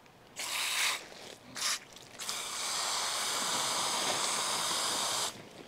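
Garden hose spray nozzle squeezed in two short bursts, then held open for a steady hiss of spray lasting about three seconds, rinsing a freshly gutted gar on a plastic table.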